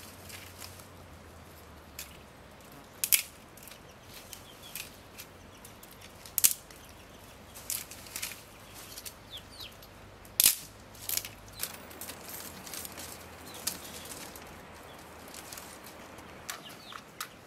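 Dry twigs and thin branches being snapped by hand and rustling as they are packed into a tandoor, with sharp cracks every few seconds. Faint bird chirps are heard now and then.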